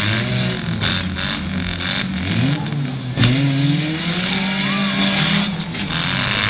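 Demolition derby cars' engines running and revving in rising and falling pitch, with a single sharp bang about three seconds in.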